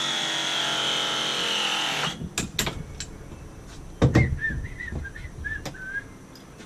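Cordless drill motor running with a high whine that sags slightly in pitch, then stopping about two seconds in. A few clicks follow, and then a loud knock about four seconds in.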